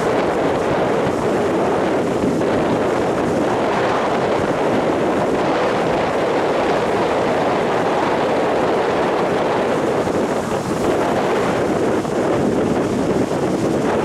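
Heavy surf from a rough sea breaking and washing up a sandy beach in a steady, continuous rush, with wind blowing across the microphone.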